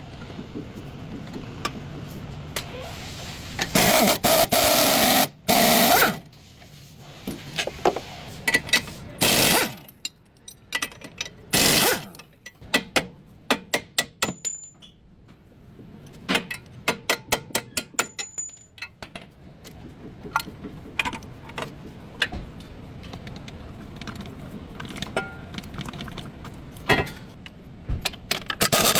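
Hand tools and metal parts clicking, clanking and scraping during work on a car's front CV axle, with a run of rapid clicks and several louder bursts of noise.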